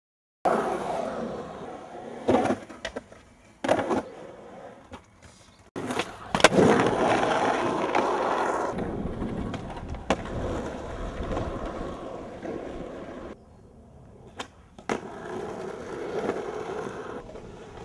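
Skateboard wheels rolling over rough concrete, with several sharp clacks of the board popping and landing tricks.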